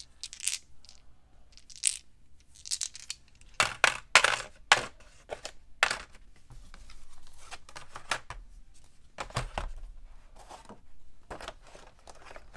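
Board game pieces being handled and packed into a hard plastic tray insert: dice clattering, cardboard pieces and a card sliding in. There are irregular clicks, knocks and rustles, and the box lid is set on near the end.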